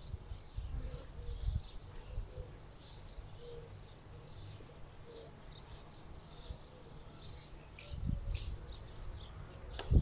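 Small birds chirping and twittering in short, scattered calls, over wind buffeting the microphone in gusts. The wind is strongest near the start and again just before the end.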